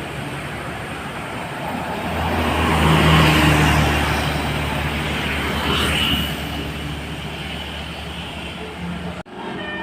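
A tour bus driving past with the rest of the traffic, its engine hum swelling to a peak about three seconds in and then easing off. Near the end the sound cuts off abruptly and a tune of short stepped notes begins.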